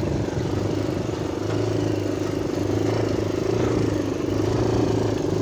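ATV (four-wheeler) engine running steadily as it drives across the pasture, a little louder after about a second and a half.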